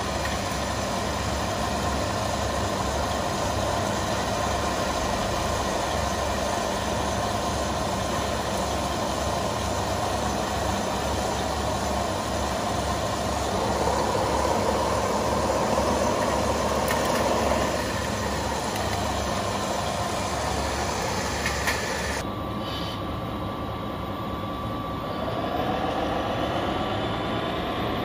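Radio-controlled model trucks running, with a steady, low, pulsing engine-like drone; a louder stretch in the middle and rising motor whines near the end.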